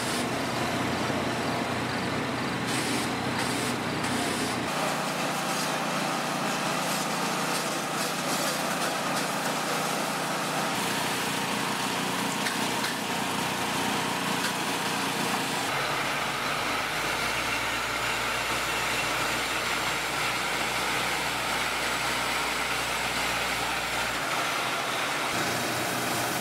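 High-pressure washers spraying military vehicles: a steady hiss of water with a machine hum underneath that shifts in pitch several times.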